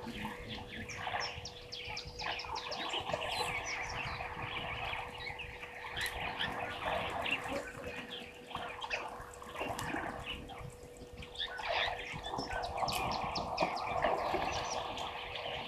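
Wild birds chirping and calling in a busy chorus of many short, quick notes, with a steady hum underneath.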